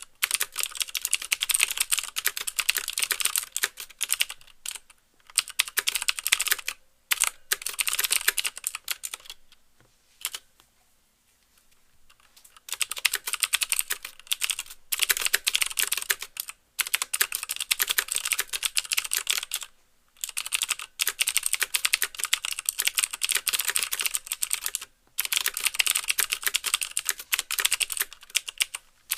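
Fast typing on a CM Storm QuickFire Stealth mechanical keyboard with clicky Cherry MX Blue switches: a rapid stream of key clicks with the clack of keys bottoming out. The typing runs in bursts with short breaks, and stops for about two seconds a third of the way in.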